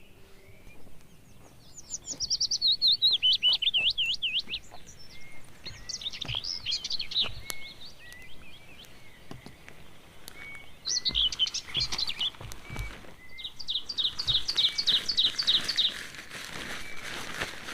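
Forest birds singing: bouts of fast warbling and rapid trilled note series, with a softer short note repeating about once a second underneath.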